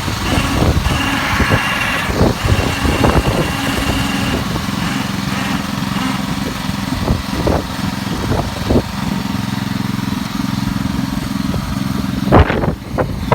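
Wheel Horse garden tractor's engine running steadily while ploughing, with scattered knocks and rattles and a louder burst of noise near the end.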